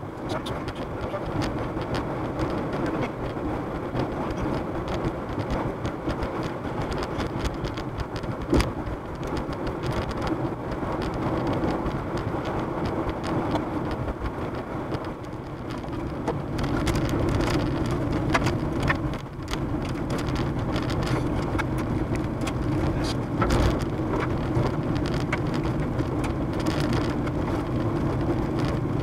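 Road noise inside a moving car, picked up by a dashcam, with rain starting to strike the windshield and roof as many small ticks. The ticks grow denser and the noise louder from a little past halfway through.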